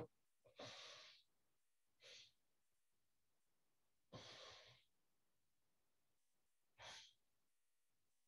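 Four faint breaths, a couple of seconds apart, from a person holding a deep forward-bent qigong posture.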